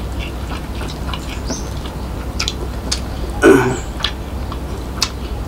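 Close-miked eating sounds of a mouthful of rice and soy-sauce egg: wet chewing and lip smacks heard as scattered short clicks, with one louder, brief burst about three and a half seconds in.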